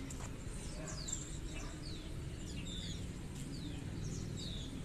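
Birds chirping in the background: many short, falling chirps, several a second, over a steady low hum.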